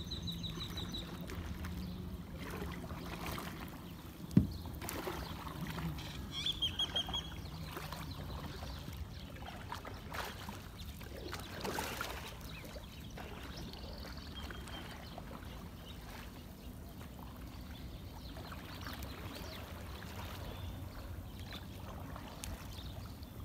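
Paddles dipping and swishing through calm water as canoes are paddled along a canal. One sharp knock about four seconds in, and a bird's short trills a couple of seconds later.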